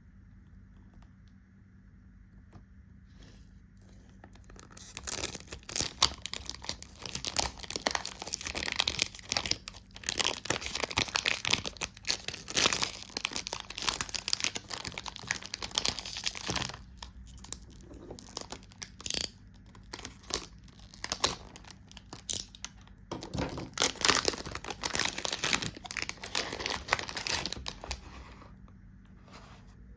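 Packaging wrap on a perfume box being torn and crinkled by hand while it is unboxed. The crackling starts about four seconds in, stops briefly a few times, and ends near the close.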